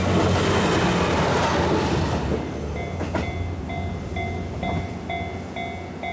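KiHa 72 series diesel train running past a level crossing and pulling away, its rumble fading over the first couple of seconds. Then the level crossing's warning bell rings on steadily, about two rings a second, with a single sharp click just after it starts.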